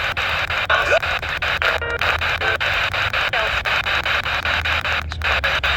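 Radio receiver static with regular crackling clicks and a low hum, a weak-signal broadcast in which the voice reading the Emergency Alert System required monthly test announcement is only faintly heard under the noise.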